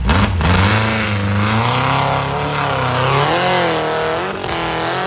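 A 2WD hill-climb buggy's engine revving hard under load as it climbs a steep slope. The revs rise and dip over and over.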